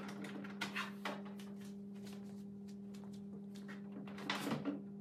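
Handling noises: scattered clicks and rustles as cables are unplugged from the back of a wall-mounted flat-screen TV, then a louder cluster of knocks about four seconds in as the television is gripped to lift it off its wall mount. A steady low hum runs underneath.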